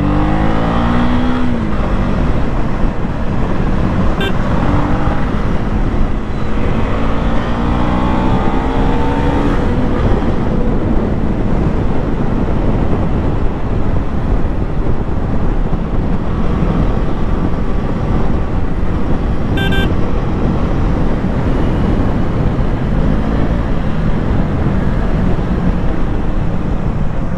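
KTM 250 Duke's single-cylinder engine running under way, its pitch rising as it accelerates near the start and again after about six seconds, over steady wind noise on the microphone. Two brief high beeps, about four and twenty seconds in.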